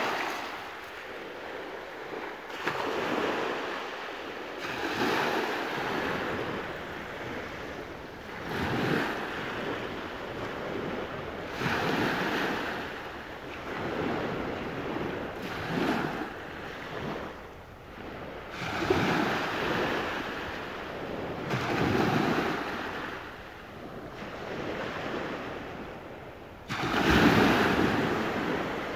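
Small waves washing up and breaking on a pebbly sand beach, one surge every three seconds or so, with the largest wave near the end.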